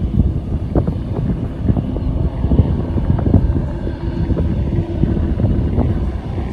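Wind buffeting the microphone in gusts. Under it is the faint steady hum of an Airbus A330 airliner's jet engines at low power as it moves along the runway.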